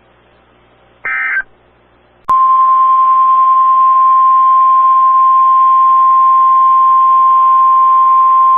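About a second in, a half-second burst of warbling digital data tones (the EAS/SAME header signal). A little after two seconds, a click and then the loud, steady single-pitch NOAA Weather Radio 1050 Hz warning alarm tone over radio hiss. The tone signals that a new warning broadcast is about to follow.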